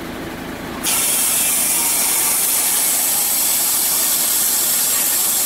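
Compressed nitrogen hissing through a just-opened valve as it pressurises a dry powder fire truck's powder tank. The loud, steady hiss starts suddenly about a second in.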